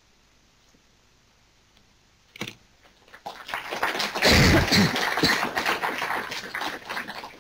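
An audience applauding, starting about three seconds in after a single knock and tailing off near the end.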